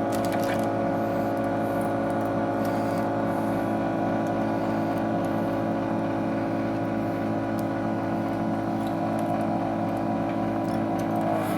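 Steady mechanical hum of a heated suction screen-separator machine, its vacuum pump running without a break to hold the tablet down.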